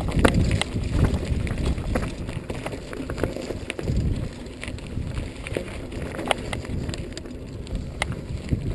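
Norco Storm hardtail mountain bike rolling downhill on dry dirt singletrack on 26x2.5 Continental Mountain King tyres: a steady rumble of tyres and wind on the microphone, with frequent sharp clicks and rattles from the bike over the bumps. The rumble is heaviest in the first few seconds and eases a little after that.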